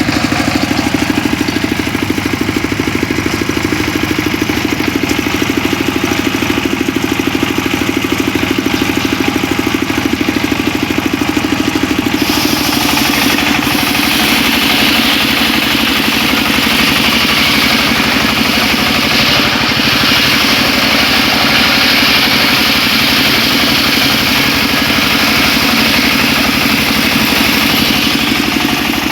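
Homemade engine-driven circular saw running steadily. About twelve seconds in, the blade starts cutting through mahogany, and a loud hissing rasp of sawing joins the motor's sound.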